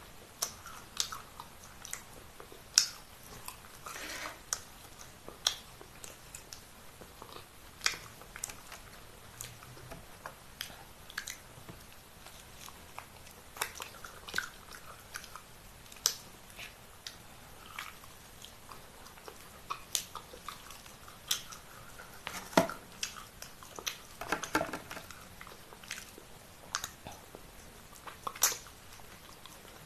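A person chewing and biting grilled chicken, with irregular sharp wet mouth clicks and smacks.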